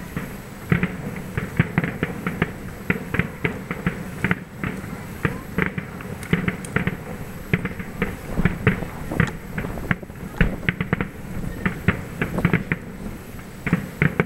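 Aerial fireworks shells bursting in a rapid, irregular string of bangs and pops, several a second, with no break.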